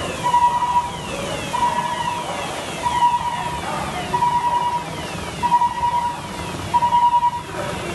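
Emergency vehicle siren wailing in a repeating cycle about once a second, a held note followed by quick falling sweeps, over background noise.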